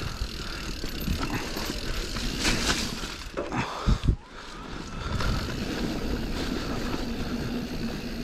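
Cube Stereo Hybrid electric mountain bike riding down a leaf-covered dirt trail: tyres rolling and the bike rattling over the ground, with wind on the camera and a few heavy knocks about four seconds in. A steady low hum runs through the second half.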